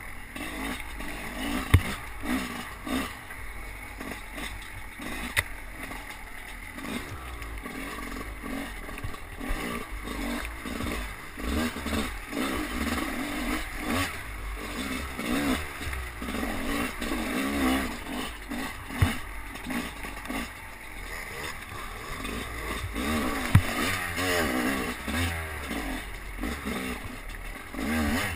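Off-road enduro motorcycle engine revving up and down as the bike is ridden over rough forest terrain, heard from the rider's helmet camera. A few sharp knocks come from the bike striking the rough ground.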